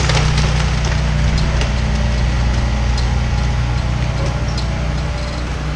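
Excavator diesel engine running steadily, with wood cracking and splintering as the house is torn apart.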